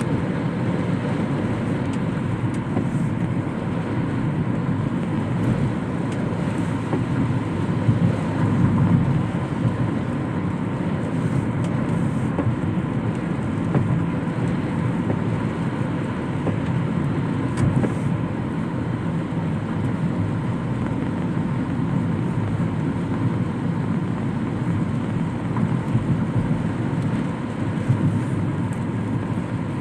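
Steady road and engine noise of a car being driven.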